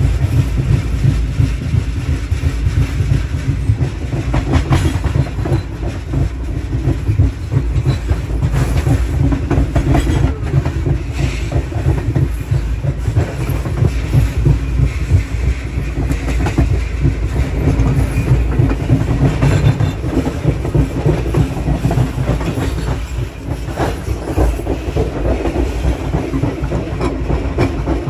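Wheels of a historic Pullman passenger car rolling on the track, heard from its open rear observation platform: a steady heavy rumble with continuous clickety-clack and a few sharper knocks.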